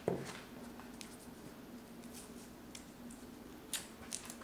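A soft thump near the start as a cut expanded-PVC letter is set down on a PVC sheet, then short ripping sounds near the end as double-sided tape is pulled off its roll. A faint steady hum runs underneath.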